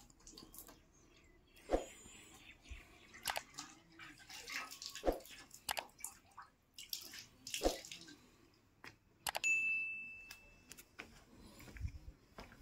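Scattered faint knocks and clicks, and about nine seconds in a sharp click followed by a single bright bell-like ding that fades over about a second and a half: the click-and-bell sound effect of an on-screen subscribe animation.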